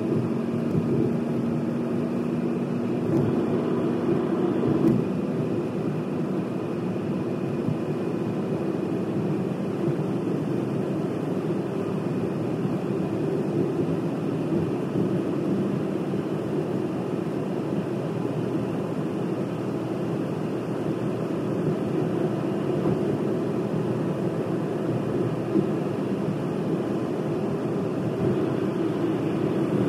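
Car driving along a road: a steady drone of tyre and engine noise that holds even throughout.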